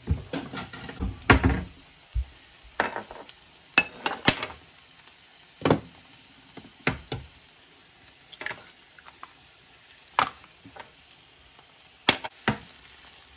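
Eggs being cracked one at a time: a string of sharp taps and clicks of eggshell against bowl rims and of small bowls set down, a cluster in the first second and a half, then single knocks every second or so. A faint frying sizzle runs underneath.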